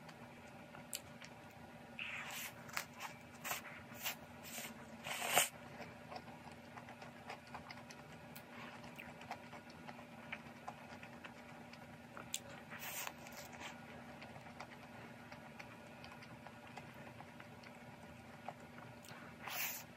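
Close-up eating sounds: bites into the baked crust of a lemon meringue pie and chewing, with clusters of crisp crackles about two to five seconds in, again around thirteen seconds, and near the end.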